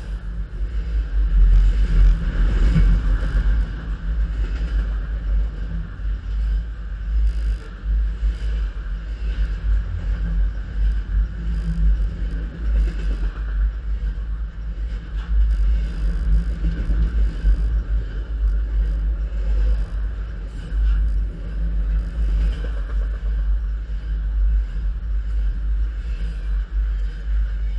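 Canadian National freight train of stacked intermodal containers rolling directly over a microphone lying between the rails: a loud, steady, deep rumble of steel wheels on the rails, with faint clicks and rattles over it.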